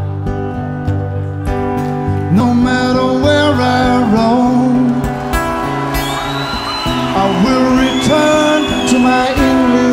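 Song accompanied by acoustic guitar, with steady chords and a gliding sung melody line that comes in about two seconds in.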